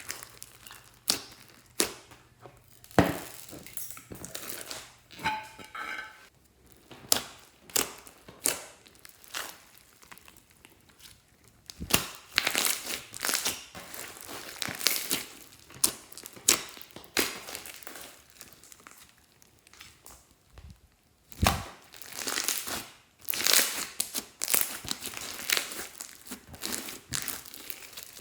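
Hands squishing, stretching and folding glossy slime, making irregular sticky pops and clicks that come in denser runs at times.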